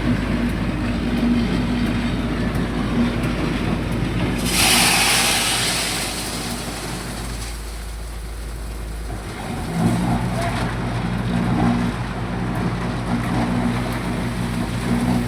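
Heavy machinery at a ready-mix concrete plant running with a steady engine-like hum. About four seconds in, a loud hissing rush lasts about two seconds. The machine's note changes and grows stronger about ten seconds in.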